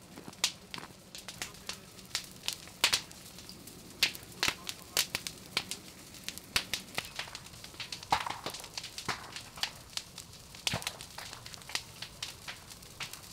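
Wildfire burning through grass, reeds and brush, crackling with many irregular sharp pops and snaps.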